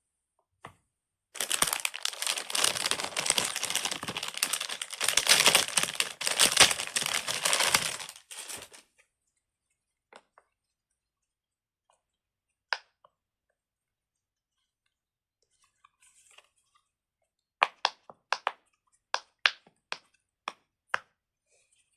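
Silicone pop-it fidget toy being handled: dense crackling and rustling for about seven seconds, then, after a pause, about ten sharp separate pops as its bubbles are pushed through.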